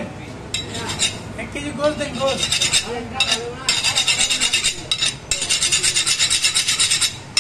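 Fast, rhythmic rasping scrapes at about nine strokes a second, in several runs with short breaks, stopping shortly before the end.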